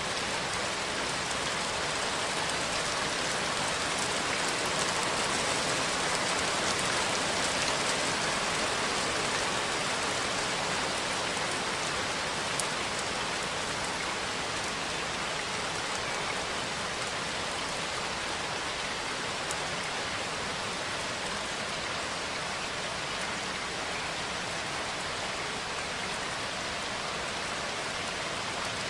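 Steady rain falling: an even, unbroken hiss of rain on surfaces, with one sharper drop tick about twelve seconds in.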